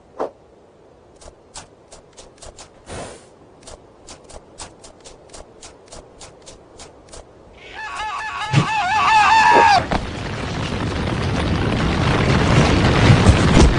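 Cartoon sound effects: sharp ticks about three a second, then a warbling whistle that swoops down, then a loud rushing roar that keeps building.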